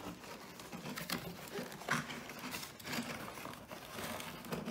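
Cardboard box being opened and handled by hand: irregular rustling and scraping of the box's flaps and cardboard, with a sharper click about two seconds in.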